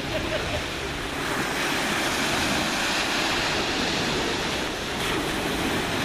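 Small sea waves washing steadily onto a pebbly shore, with some wind rumbling on the microphone.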